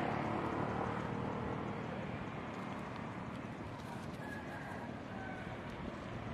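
Outdoor background noise of a passing motor vehicle, fading away over the first few seconds, with two faint short high chirps about four and five seconds in.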